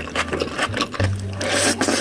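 Close-miked wet chewing and mouth sounds of eating rice and dal, a quick run of small clicks and smacks with a brief crisper crunch near the end, over a low steady hum.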